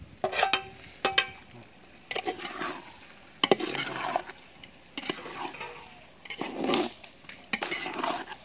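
A metal spatula stirs and scrapes chopped vegetables in a large metal cooking pot, in separate strokes every second or so. A few sharp, ringing metal clanks come in the first second and a half as the pot's lid is handled.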